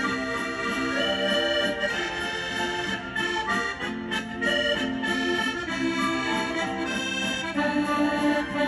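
Background accordion music: a melody of held notes that change every half second or so.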